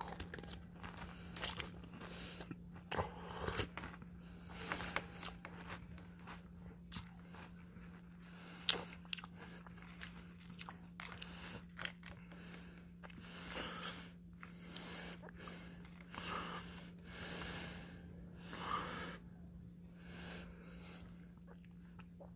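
Someone chewing a mouthful of oat-ring cereal in milk close to the microphone, with irregular crunches and breaths, over a steady low hum.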